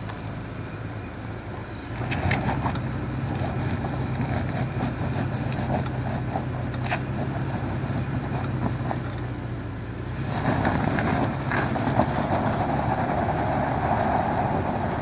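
A 2017 Toyota 4Runner TRD Off-Road's 4.0-litre V6 pulls steadily in four-wheel-drive low, its note stepping up about two seconds in as it works up a loose, muddy gravel slope. The tyres crunch and scrabble on the gravel, with a few sharp knocks of stones, and the scrabbling gets louder from about ten seconds in. The tyres are slipping for want of traction while the A-TRAC brake traction control works on it.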